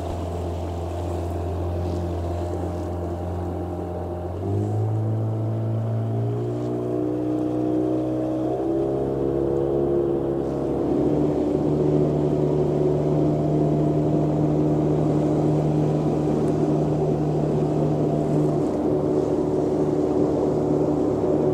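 Boat motor running under way, its pitch stepping up three times in the first half as it speeds up, then holding a steady cruising note.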